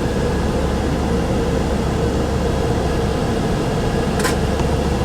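Steady mechanical hum of running machinery, a low drone with a steady mid-pitched tone over it, like an air-conditioning unit; one short tick about four seconds in.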